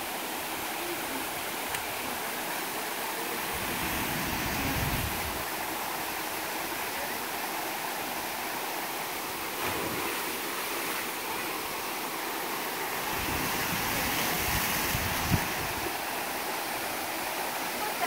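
Waterfall rushing steadily down a steep rock slide into a pool, with a low rumble that comes and goes twice.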